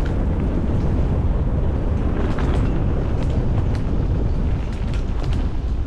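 Heavy wind buffeting on the microphone of a camera riding along a muddy woodland track, a dense low rumble with no engine note in it. Sharp clicks and rattles come now and then over the second half, and the rumble eases right at the end.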